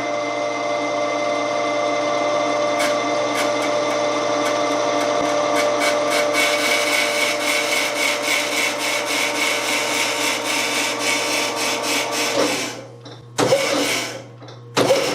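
DoAll surface grinder's rapid elevation drive running with a steady whine and fast ticking, moving the table up or down; it stops about twelve seconds in, followed by two brief jogs.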